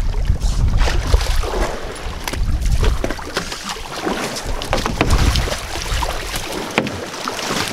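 Sea water splashing and sloshing against a boat's hull as a hooked halibut is hauled thrashing to the surface, with a steady low rumble and many sharp crackles of spray.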